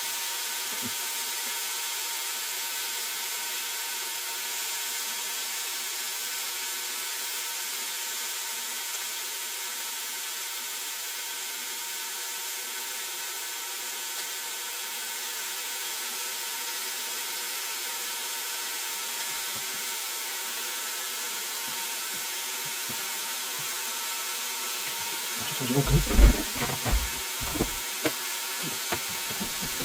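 Chicken strips frying in hot oil, a steady hiss. Near the end come a few loud clattering knocks, like utensils against the pot or lid.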